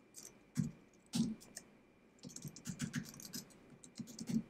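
Computer keyboard typing: a few separate keystrokes, then a quick run of keys about two seconds in and a few more near the end, as a terminal command and a password are entered.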